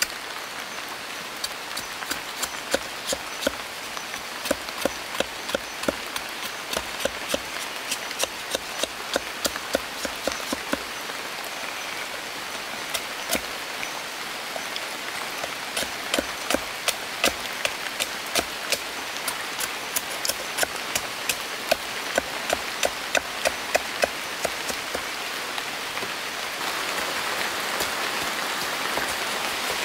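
Knife chopping and shaving a bamboo stake, quick sharp strikes several times a second, over a steady hiss. The strikes stop about three seconds before the end and only the denser hiss remains.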